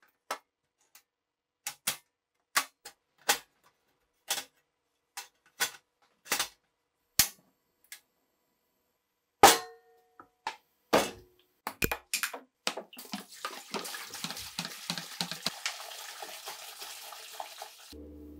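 A run of separate clicks and knocks as equipment is handled and set down on a tabletop. About halfway through, a stainless steel pan is put down with a loud clank that rings briefly. For the last five seconds or so, water pours steadily into the pan.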